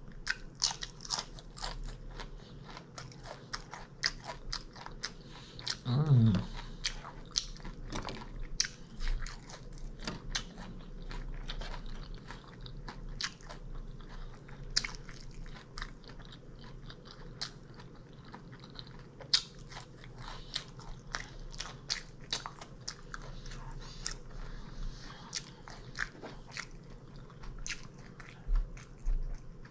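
A person chewing crunchy breakfast food close to the microphone: many crisp crunches and wet mouth clicks, with a short hum about six seconds in.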